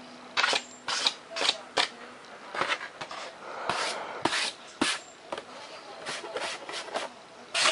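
Irregular rubbing and scraping as a foam-board model airplane is handled and turned over: about a dozen short rustles and scrapes.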